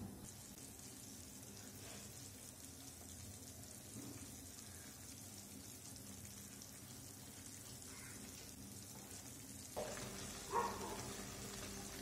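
Chopped red amaranth leaves cooking in water in an aluminium kadai, a faint steady hiss of the pan simmering. It grows a little louder near the end, with one short sharp knock.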